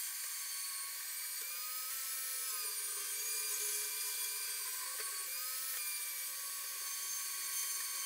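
Portable variable-speed bandsaw, mounted upright, running with a steady high whine as its blade cuts through a metal bicycle frame tube.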